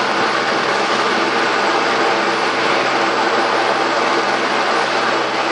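Helicopter's turbine engine running steadily on the ground, still warming up before takeoff: a loud, even rushing noise with a steady low hum that does not change.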